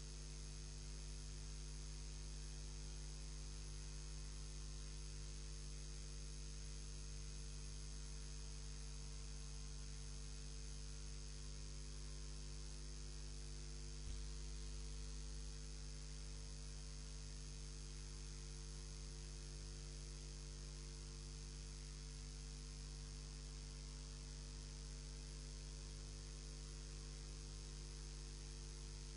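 Steady electrical mains hum with a buzz and hiss on a broadcast sound line that carries no programme audio, the dead air of a technical fault. A single faint click about halfway through.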